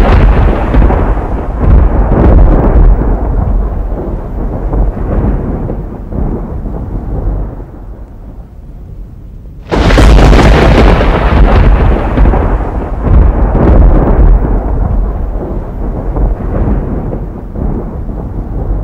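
Thunder rolling after lightning strikes: a loud peal fades away over several seconds, then a second clap breaks in suddenly about halfway through and rumbles down again, with deep rumble throughout.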